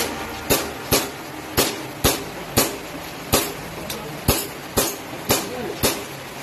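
Airsoft pistol firing a steady string of about a dozen shots, roughly two a second, each a sharp crack with a short echo.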